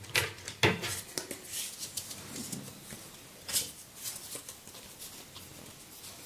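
Playing cards being handled and sorted, a string of soft clicks and flicks that thin out after about four seconds.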